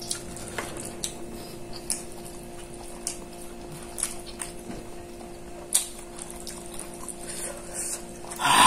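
Scattered light clicks of a spoon and dishes during a meal, roughly one a second, over a steady low hum.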